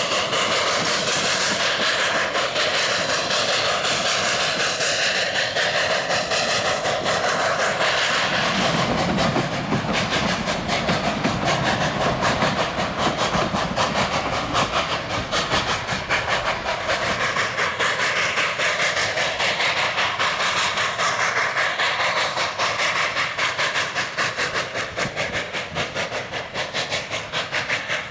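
Narrow-gauge steam train running, a steady hissing noise with a fast, even beat that becomes more distinct about ten seconds in.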